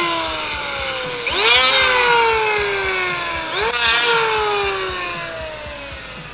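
Electric hand planer shaving the edge of an old oak door in short bursts. Each time the motor whines up quickly and then slowly drops in pitch and fades: one run winding down at the start, two more starting about a second and about three and a half seconds in. The door is being planed down so it clears the baseboard.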